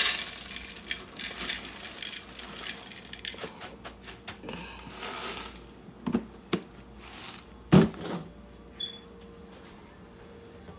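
Small pieces of dry cereal poured from a plastic container into a glass bowl: a dense rattling patter for the first three seconds or so that thins out, then a few separate knocks of the container and bowl being handled.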